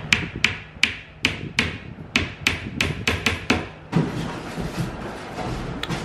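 Claw hammer driving a small nail into the edge of a wooden cabinet panel: about a dozen sharp taps, roughly three a second, stopping about four seconds in.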